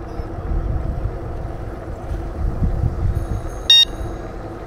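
Steady low rumble of traffic and road noise heard from a moving bicycle, with one short, sharp, high-pitched beep about three-quarters of the way through, the loudest sound.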